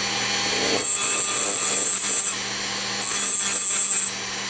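Rotary tool grinding burrs off the edges of a Muncie four-speed synchronizer slider, in two passes of about a second and a half each, with the tool running steadily between them.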